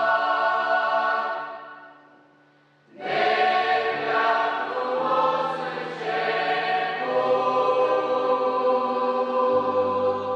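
A youth choir singing a Christian song in sustained chords. The first chord fades away about a second in, leaving a short pause. The choir then comes back in on a new phrase, changing chord a few times and holding each one.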